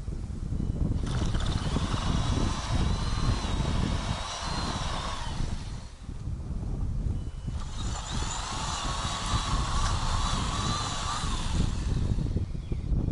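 Ryobi 40V cordless string trimmer running at speed: its motor whines for about four seconds, lets off, then runs for another four seconds before letting off again near the end, over a steady low rumble.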